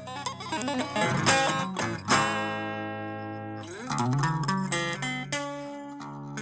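Guitar playing: chords struck and left to ring out, with fresh chords about two seconds in and again about four seconds in.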